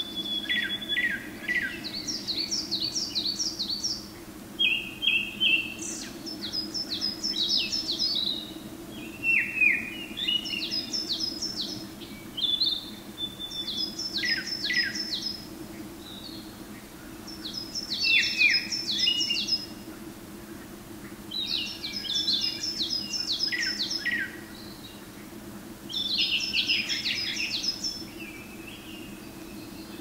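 Male Japanese thrush singing: a new phrase every few seconds with short pauses between, each a quick run of clear, repeated high whistled notes and lower slurred notes. A steady low hum runs underneath.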